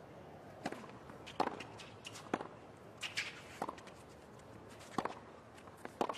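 Tennis rally on a hard court: a serve, then a string of sharp pops from racket strings hitting the ball and the ball bouncing, about one a second, over a faint hush from a quiet crowd.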